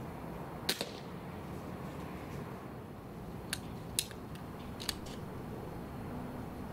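Sharp metallic clicks from an air rifle's action being worked on its tripod mount: a quick double click less than a second in, then three single clicks between about three and a half and five seconds, the loudest about four seconds in.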